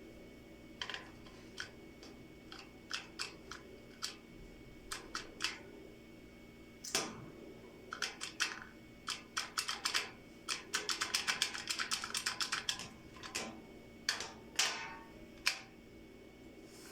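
Irregular sharp clicks and taps, a fast run of them about two-thirds of the way through, over a faint steady hum.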